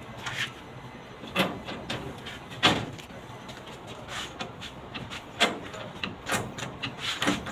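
Irregular knocks and scrapes from hand work on a washing machine's body, with one louder knock a little under three seconds in.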